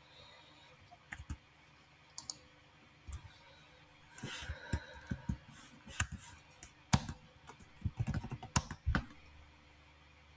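Computer keyboard typing: a few separate key clicks at first, then quicker runs of keystrokes from about four seconds in, stopping about a second before the end.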